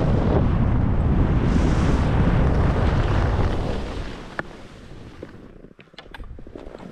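Wind buffeting an action camera's microphone as a skier runs downhill, mixed with skis hissing over groomed snow. About four seconds in the noise drops off sharply, leaving a quieter hiss of skis on snow with a few light clicks.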